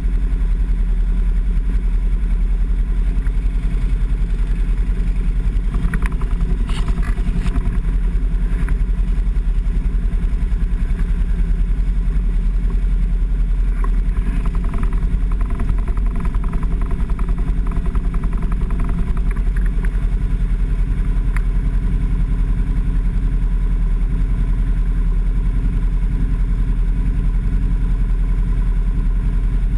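A vehicle engine running steadily with a constant low rumble, and a few brief clattering knocks about six to eight seconds in.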